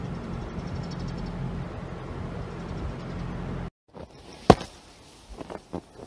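Steady blizzard wind noise with a low, even hum under it. It cuts off abruptly about two-thirds of the way in. A quieter stretch follows, with one sharp knock about a second later and a few softer knocks after it.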